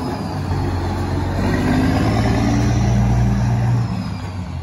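Diesel engine of a semi-truck tractor unit driving away without a trailer. Its steady engine note fades near the end.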